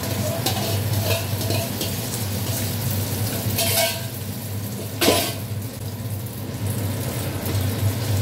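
Egg mixture sizzling as it fries in hot oil in a frying pan, while a spoon scrapes it out of a stainless-steel bowl. Two sharp metal knocks come about three and a half and five seconds in, over a steady low hum.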